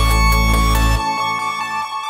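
Electronic background music. A heavy bass drops out about a second in, leaving higher sustained synth notes that slowly fade.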